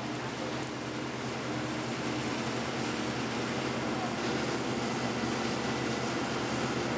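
Over-the-row olive harvester running: a steady engine drone under a broad mechanical rush, a little louder from about four seconds in.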